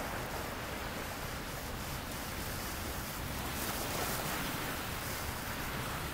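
Ocean surf breaking on a shoreline: a steady wash of noise that swells around the middle as a wave breaks, then eases back.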